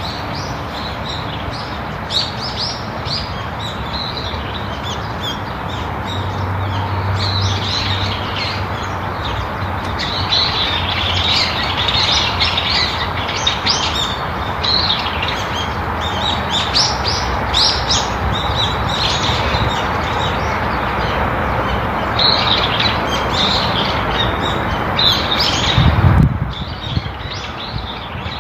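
Many small birds chirping in quick, overlapping calls over a steady outdoor background hiss. Near the end a brief low thump sounds, and the background cuts off abruptly.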